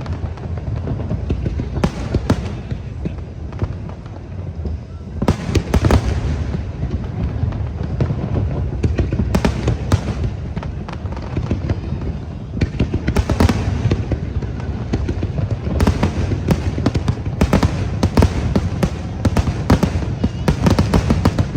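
Aerial fireworks going off in bursts: sharp bangs and crackles in clusters over a steady low rumble, coming thick and fast in the last several seconds.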